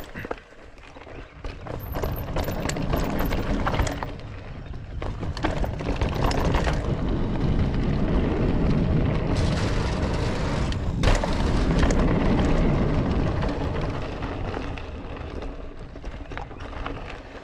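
Wind rumbling over the camera microphone as a mountain bike runs down a dirt trail, with tyres crunching on dirt and rock; it builds as the bike picks up speed, peaks mid-way, and eases off near the end, with scattered clicks and knocks from the bike over rocks.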